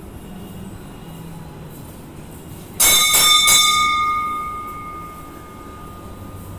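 Temple bell struck three times in quick succession about three seconds in, then ringing out with a clear tone that fades away over about three seconds.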